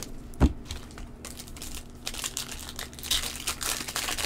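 Foil wrapper of a baseball card pack crinkling as it is peeled and torn open by hand, with a low thump about half a second in.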